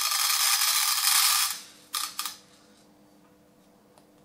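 Number 6 shotgun pellets pouring out of a cut-open cartridge into a metal tin, a dense rattle that stops about a second and a half in. A single short tap follows about two seconds in.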